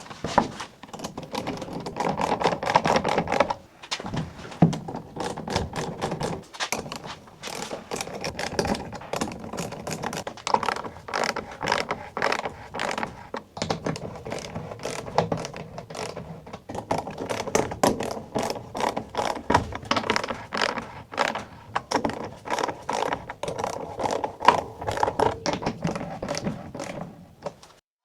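Rapid, irregular mechanical clicking and knocking, like a ratchet being worked, typical of tightening the stainless steel band clamps on a rubber pipe coupling. The clicking breaks off briefly a few seconds in and again a little later, then carries on.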